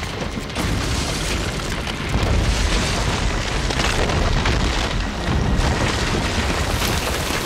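Film action sound effects: deep rumbling booms and crashes, getting louder about two seconds in.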